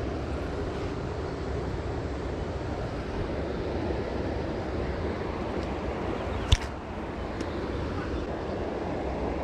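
Steady wind noise buffeting the microphone outdoors, with a single sharp knock about six and a half seconds in.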